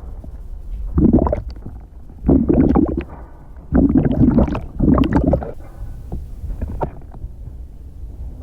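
Bubbling and gurgling from a person breathing out underwater, acted as drowning. It comes in four bursts over a steady low rumble.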